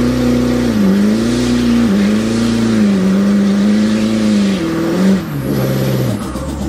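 Ford 6.7 Powerstroke V8 turbo-diesel, fitted with a 66 mm turbo kit, pulling hard, heard from inside the truck's cab. The engine note climbs and drops back several times as the transmission upshifts, with a rushing hiss over it, then eases off about five seconds in.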